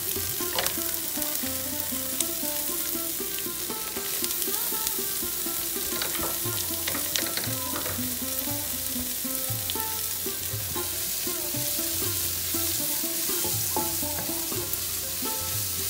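Chopped onion sizzling in hot oil with spices in a pan, a spatula stirring it with occasional scraping clicks against the pan.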